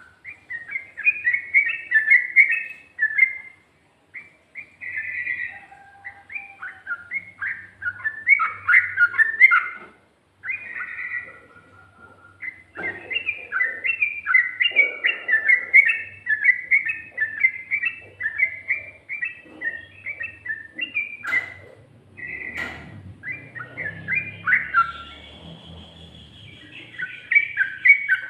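Yellow-vented bulbul (trucukan) singing long runs of fast, bubbly chattering notes in rapid succession, pausing briefly twice. Two sharp clicks come a little past the middle.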